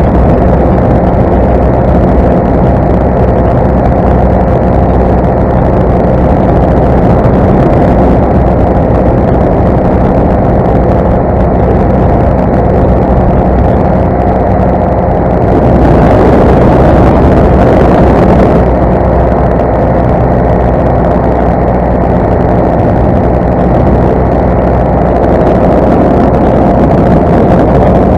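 Parajet Zenith paramotor's two-stroke engine and propeller running steadily in flight. It grows louder and brighter for about two and a half seconds a little past halfway.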